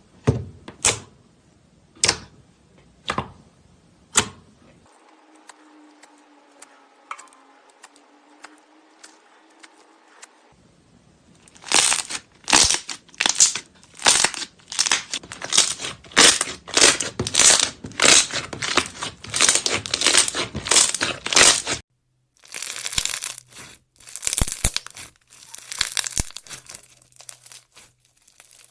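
Slime being squeezed and stretched by hand, making sticky crackling and popping sounds. It starts with single sharp pops about once a second, then goes quiet for several seconds. After that come rapid bursts of crackling, two or three a second, with an abrupt change to another stretch of crackly squishing near the end.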